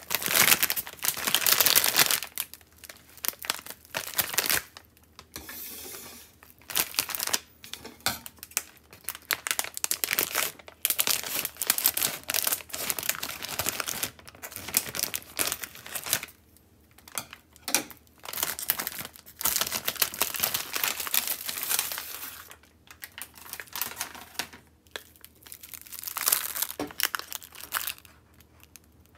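Plastic packaging of a frozen ramen kit crinkling and rustling in irregular bursts as it is handled, cut open with kitchen scissors and the plastic-wrapped frozen noodle block pulled out.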